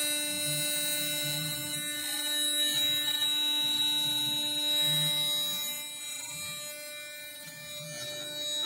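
CNC router spindle running with a steady high whine while its bit carves a wooden cylinder turning on the rotary 4th axis. Uneven low rumbles come and go under the whine as the cut and the axis motion change.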